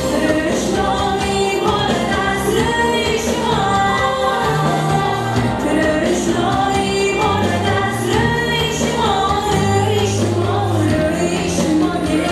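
A woman sings a song live into a microphone over electronic keyboard backing, with held bass notes and a steady beat.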